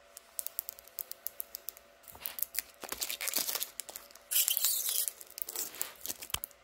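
Clear plastic protective film being peeled off the edge of a honeycomb laser-bed frame: a run of sharp crackles and ticks as it lifts, with a longer tearing rip about four and a half seconds in, and crinkling of the loose film.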